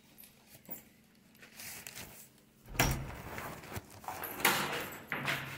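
Plastic carrier bags rustling and knocking as they are picked up and carried, with two louder bursts of rustling about three and four and a half seconds in.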